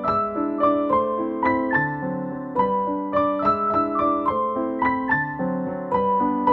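Background piano music: a gentle melody of single struck notes, about three a second, over a steady accompaniment.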